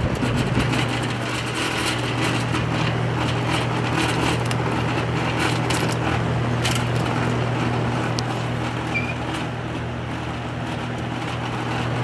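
Edison box fan running, a steady low motor hum with the even rush of air through the grille.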